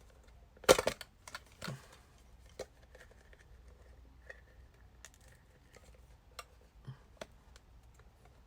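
Pokémon card mini tin being handled and pried at, still sealed in its plastic film: a loud sharp click about a second in, then scattered light taps, clicks and rustles.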